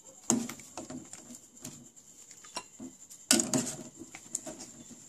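Metal ladle scooping soup out of an aluminium saucepan, knocking against the pot with several sharp clinks, the loudest about three seconds in, amid light splashing of broth.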